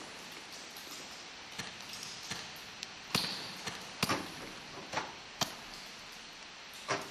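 Sharp knocks, each with a short echo, coming irregularly about once a second over a steady hiss.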